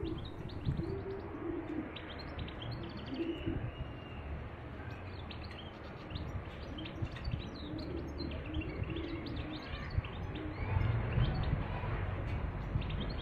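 Small birds chirping, short high calls scattered throughout, with a pigeon or dove cooing low at several points.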